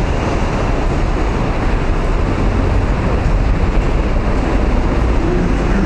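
Steady low rumbling noise of a subway station concourse.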